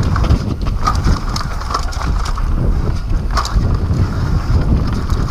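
Wind buffeting the microphone as a downhill mountain bike descends a dirt trail at speed, with rattles and knocks from the bike over the rough ground.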